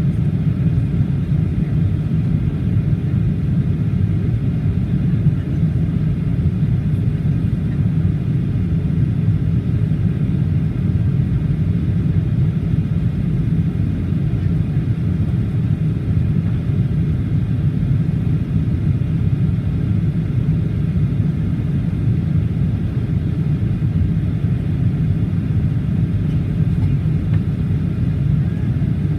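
Steady low rumble of cabin noise inside a Boeing 737-800 in descent: airflow over the fuselage and its CFM56-7B turbofan engines, with no change in level.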